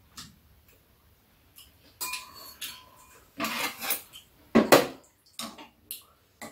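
Metal chopsticks and spoons clinking and scraping against bowls and a metal tray during a meal: scattered light clicks, a longer clatter a little after halfway, and the loudest clack about three-quarters of the way through.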